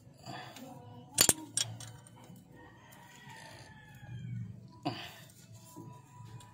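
Sharp metal clinks of a wrench against engine-case bolts, two close together about a second in and another near the end. A rooster crows in the background around the middle.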